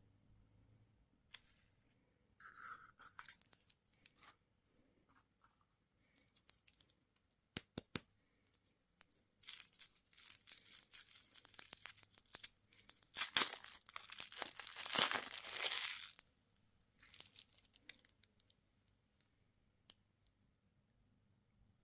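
Candy packaging handled and torn open: scattered light clicks and rustles, two sharp clicks, then several seconds of tearing and crinkling, the loudest part, before it settles back to faint rustles.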